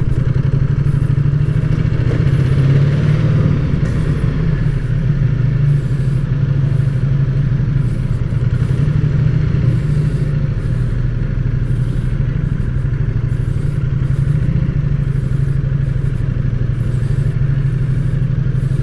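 Ducati Diavel 1260's L-twin engine running steadily through its stock exhaust, a low, even engine note with no revving.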